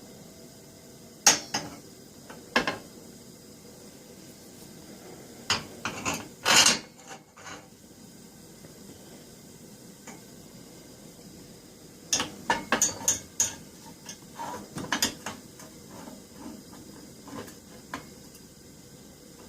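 Scattered metallic clinks and clanks of a brass padlock being turned over and handled with metal tools on its heat source. They come in a few short clusters with quiet pauses between.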